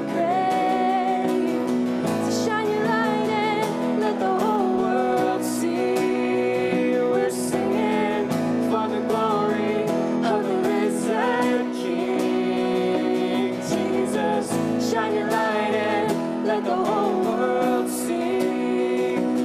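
Live worship song: a man singing lead over a strummed acoustic guitar and held keyboard chords.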